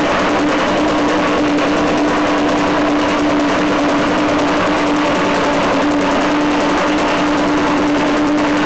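Hammer blows sinking the 1.4 mm steel head of a barrel for a steelpan, coming in a fast, even stream with no pauses. Under the blows the drum rings with a steady tone.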